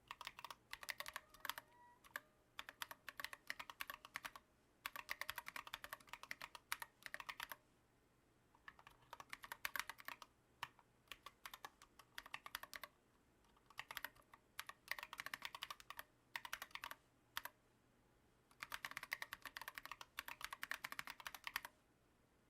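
Typing on a Planck ortholinear mechanical keyboard with lubed Holy Panda v2 tactile switches and SA-profile keycaps. The keystrokes come in quick bursts of one to three seconds, separated by short pauses.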